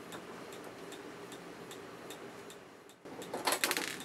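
Faint, even ticking about two or three times a second, then near the end a short clatter of small metal handling as screws come out of a plate on a 1974 Akai VT-150 video recorder.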